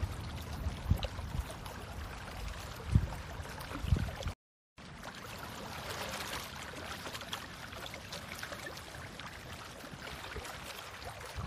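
Outdoor noise of wind and shallow water on a phone microphone, with a few low thumps of wind buffeting in the first seconds. The sound cuts out for a moment about four seconds in, then comes back as a steady hiss.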